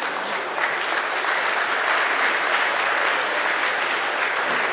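A crowd applauding: a dense, steady patter of many hands clapping.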